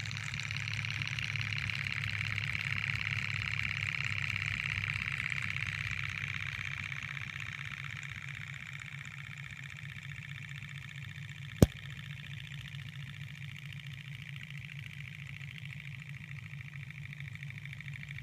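Model Stirling hot-air engine running with a steady, fast mechanical whir, growing louder over the first few seconds and then easing back. A single sharp click about eleven and a half seconds in.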